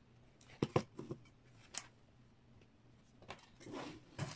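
Light knocks and clicks of a plastic solder spool and a soldering iron being handled and set down on a table, with a brief rustle shortly before a last knock near the end.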